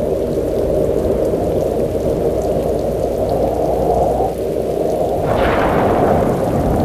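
Low, steady rumbling drone from a TV horror soundtrack's sound design. A hissing swell joins it about five seconds in.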